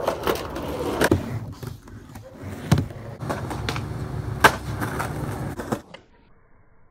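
Skateboard wheels rolling on pavement, with sharp clacks of the board hitting the ground about a second in, near three seconds and again around four and a half seconds. The rolling stops suddenly near six seconds.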